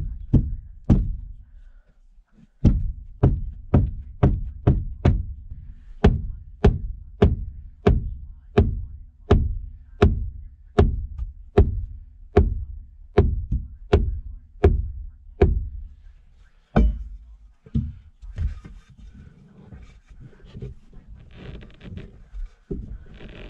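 Repeated dull thumps of feet kicking an interior boat-cabin panel to force it back into place, about two a second for some fifteen seconds, then a few slower kicks and shuffling.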